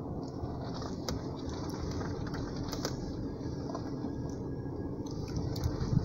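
Steady low running hum of the Range Rover heard inside its cabin, with a few light clicks and rustles as the steering wheel is turned.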